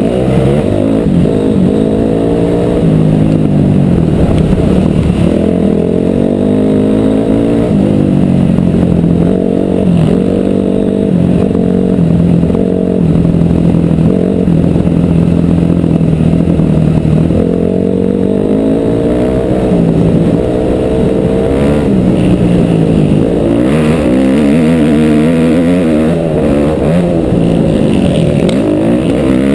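Dirt bike engine running while riding. Its pitch rises and falls with throttle and gear changes, and it holds fairly steady for several seconds in the middle.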